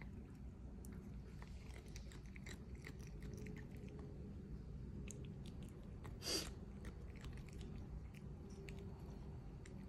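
A lynx point Siamese cat biting and chewing blades of potted cat grass: soft, irregular crunching and small clicks, with one louder crunch about six seconds in.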